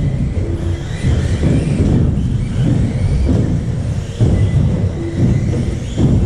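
Electric radio-controlled buggies with 17.5-turn brushless motors running laps: faint rising and falling motor whines over a steady low rumble.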